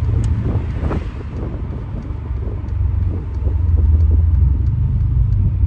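Mercedes-Benz SL550 (R231) twin-turbo V8 running under way through an exhaust fitted with cutouts: a deep rumble that grows louder about three seconds in. Wind buffets the microphone throughout.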